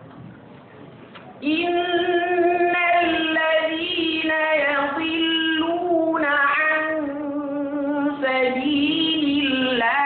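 A reciter's voice chanting Qur'anic verses in a melodic, drawn-out style, holding long, ornamented notes. It starts about a second and a half in, after a short pause for breath.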